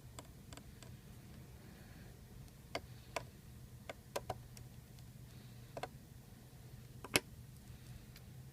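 Scattered light clicks and taps of small repair tools on an iPhone 4 while its internal screws are taken out, about ten at irregular times, the sharpest about seven seconds in, over a faint steady hum.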